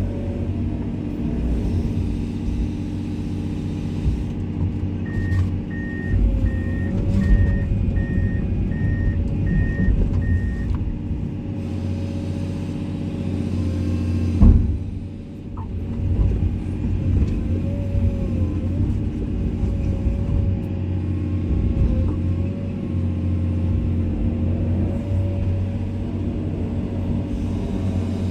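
Komatsu excavator's diesel engine running steadily under load with a wavering hydraulic whine as it works. Early on its travel alarm beeps about eight times in an even rhythm, and about halfway through there is a single loud knock.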